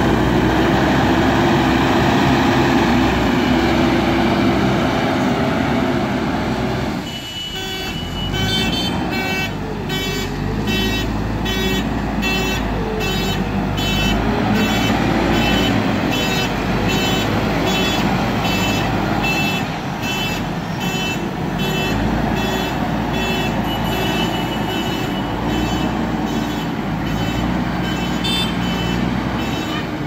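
JCB backhoe loader's diesel engine running steadily while it works the gravel. About seven seconds in the sound dips briefly, then a reversing alarm starts beeping in a steady, evenly spaced run over the engine, the sign of the machine backing up.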